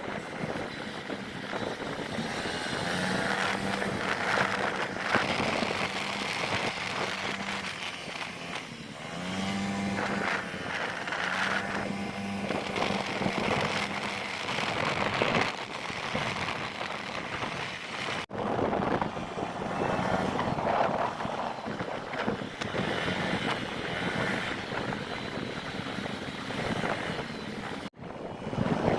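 A Honda Click 125i scooter being ridden on the road: wind rushing over the microphone, with the engine's drone and other vehicles passing. There are two brief dropouts, about 18 and 28 seconds in.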